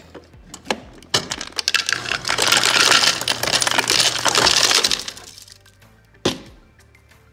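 Refrigerator door ice dispenser dropping ice cubes into a plastic blender cup: a dense clatter of cubes for about four seconds, then a single knock near the end.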